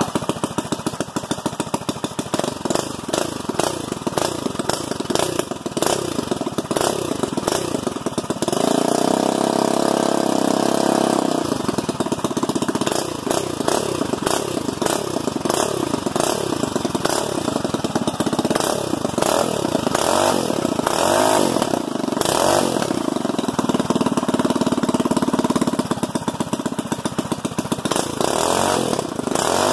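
Hot-rodded 5 hp Briggs & Stratton single-cylinder flathead engine, bored 30 over with the muffler removed, running through an open straight pipe and revved by hand at the carburettor. The revs rise and fall again and again and are held high and steady for about three seconds near nine seconds in.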